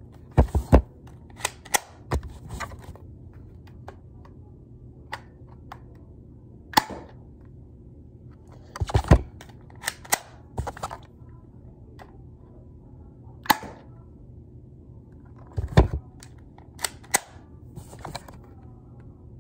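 Cheap Swiss Army spring-powered airsoft pistol being cocked and fired again and again: a series of sharp clicks and snaps, some in quick pairs or clusters, spaced a second or several seconds apart.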